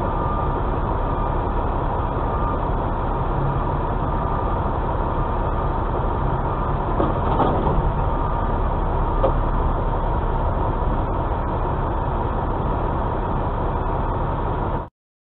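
Semi-truck diesel engine running at low speed, a steady low rumble heard from inside the cab with a faint steady high hum; it cuts off abruptly near the end.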